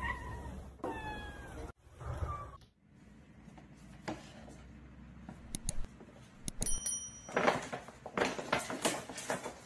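A cat meows twice, short calls falling in pitch. After a pause, a paper bag rustles and crinkles in the closing seconds as it is handled.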